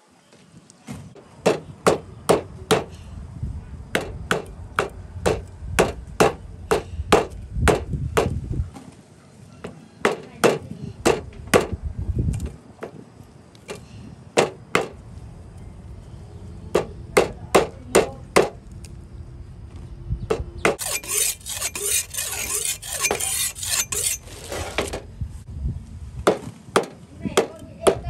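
Heavy knife scaling and chopping small fish on a wooden stump chopping block: repeated sharp knocks of the blade on the wood, at times about three a second, with short pauses. Just after twenty seconds in a rasping hiss lasts about four seconds.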